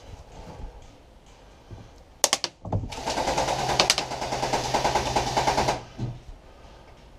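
Airsoft electric gun (AEG) firing: a few quick sharp shots about two seconds in, then a continuous fully automatic burst of rapid, even rattling that lasts about three seconds and stops abruptly.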